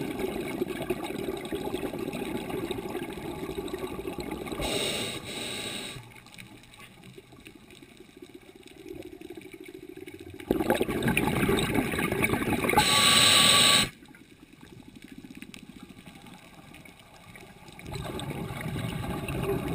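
Scuba diver breathing through a regulator underwater: long bubbling exhalations, each followed by a short hissing inhale, repeating every several seconds with quieter pauses between.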